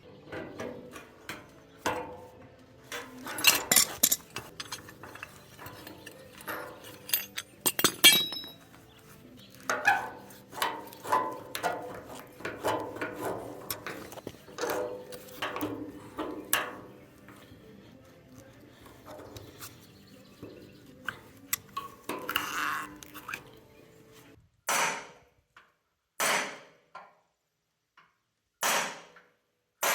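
Irregular metallic clinks and knocks of hand tools and loose metal parts being handled during truck disassembly, with a few louder sharp strikes. Near the end there are three short separate bursts of clanking with silence between them.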